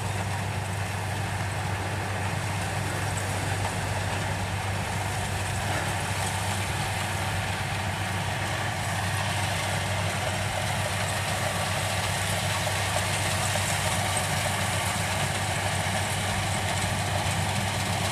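Rice combine harvester's engine running steadily as it cuts, a constant drone with a strong low hum.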